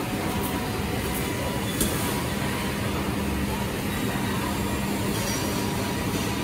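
SMYM-1825R1BP CNC router running with a steady mechanical hum and drone, with one sharp click about two seconds in.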